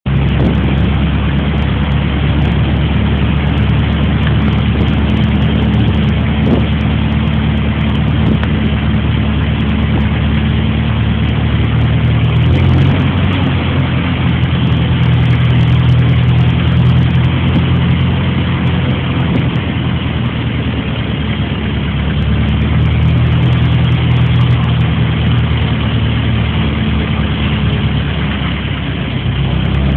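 A motor vehicle's engine running steadily, its note changing about twelve seconds in, over a steady rushing noise.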